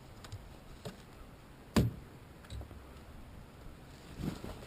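A few scattered clicks and knocks over a quiet background, the loudest a single sharp knock a little under two seconds in.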